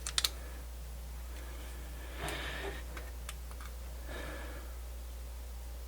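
Small plastic clicks and faint handling sounds from a portable MiniDisc player being loaded and handled: a few sharp clicks at the start, soft scuffing, and one more click about three seconds in, over a low steady hum.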